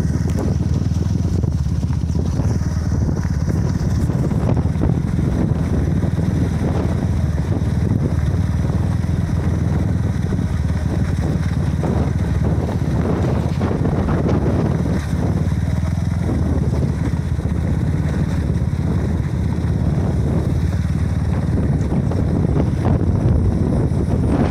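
Steady wind noise on the microphone from riding on a moving motorcycle, with the motorcycle's engine running beneath it.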